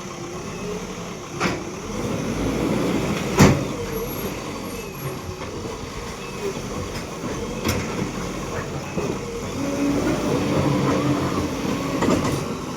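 JCB 3DX backhoe loader's diesel engine running steadily at work, with several sharp metal knocks.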